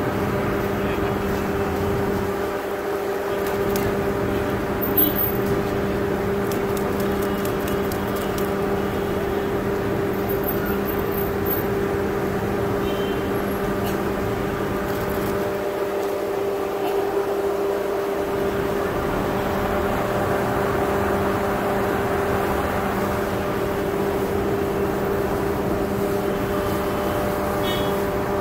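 A steady mechanical hum of constant pitch, like a running motor or engine, over street background noise, with a brief tick about five seconds in.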